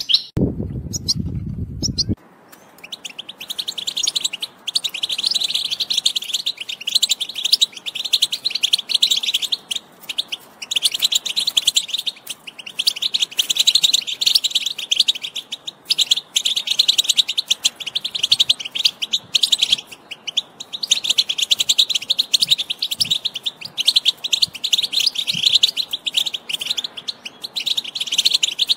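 European goldfinch singing: a long, fast, run-on twittering song broken only by short pauses. A low rumble heard under a few chirps cuts off abruptly about two seconds in.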